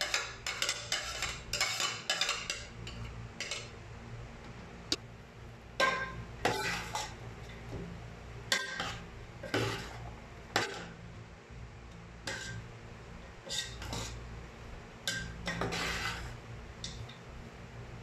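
Metal spoon scraping and clinking against a metal mixing bowl while chopped boiled beef is stirred and tossed. The scraping is dense for the first few seconds, then gives way to separate, irregular clinks about once a second.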